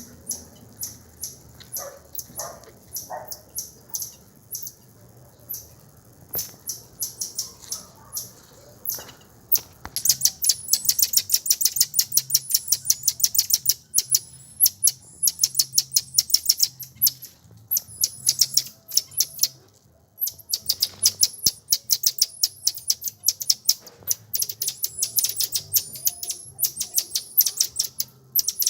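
A bird chirping in quick runs of high-pitched notes, several a second: sparse at first, then much denser and louder about ten seconds in.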